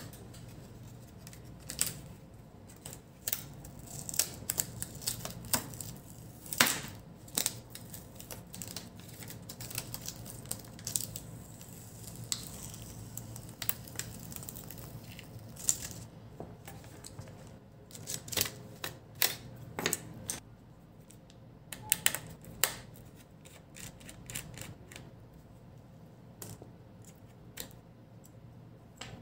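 Black plastic insulating sheet being peeled off a laptop motherboard by hand: irregular crackles and sharp clicks as the film lifts and the board is handled, over a low steady hum.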